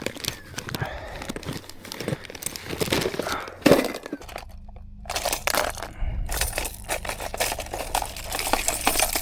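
Fishing tackle being handled while a lure is changed: irregular sharp clicks, clinks and plastic rustling, with one louder click a little before halfway. In the second half a low steady rumble sits under the clicking.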